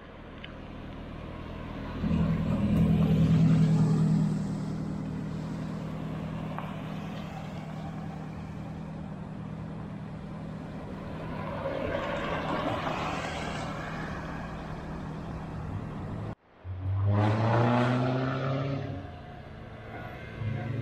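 Race car engines on a hillclimb road. An engine runs at steady revs while a car comes up through the bend, with a swell of road noise about two-thirds of the way through. After an abrupt cut, an engine revs up in rising sweeps as a car accelerates.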